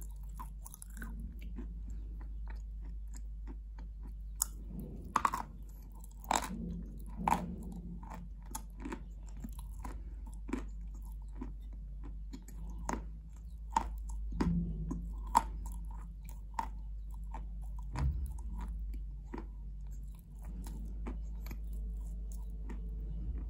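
A person chewing and eating a wet chalk paste: irregular sharp crunches and wet mouth clicks, starting a few seconds in and thinning out near the end.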